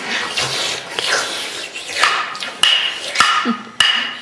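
Children imitating a clay troll's sound with their mouths: breathy hissing noises with several sharp clicks or smacks.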